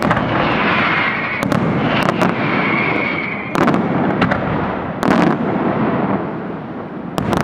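Fireworks display: aerial shells bursting with sharp bangs, often in quick pairs, every second or two, over a steady crackling hiss from the burning stars and fountains.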